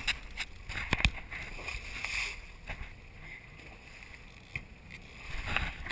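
Water rushing and sloshing along the hull of a moving sailboat, with a few sharp knocks about a second in and again near the end.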